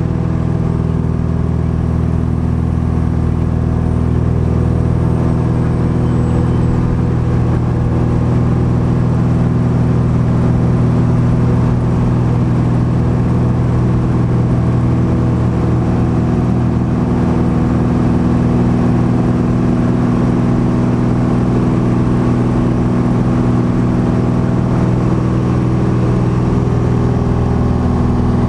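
Cessna R182 Skylane's piston engine and propeller in flight, a steady, loud drone that holds an even pitch.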